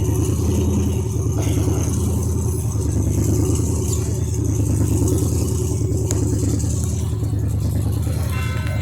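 Mitsubishi Pajero rally car's engine running at a steady speed, a low even engine sound without revs rising or falling.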